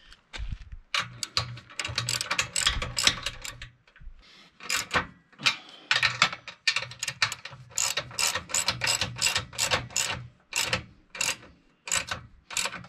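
Hand socket ratchet wrench clicking in repeated runs of rapid clicks, with brief pauses, as bolts are tightened down from finger tight.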